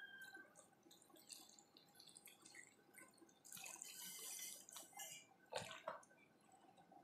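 Faint trickle of water poured from a plastic cup onto green chillies and salt, about three and a half seconds in, followed by two small clicks.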